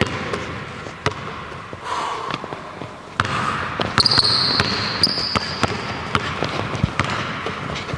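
Basketball dribbled on a hardwood gym floor in sharp, irregular bounces. From about four seconds in, sneakers give a high squeak on the floor for a second or so.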